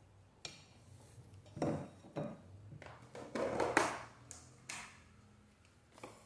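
The lid of a Semp electric sandwich grill being closed and handled: a handful of short plastic knocks and clacks, the loudest about three and a half seconds in.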